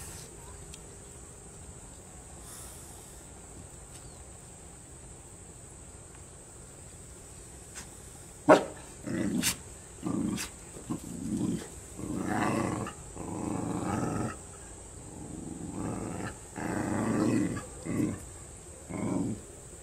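A dog growling and barking in a run of short, low bursts that begin about eight seconds in, after a quiet stretch. A single sharp click comes just before the first burst.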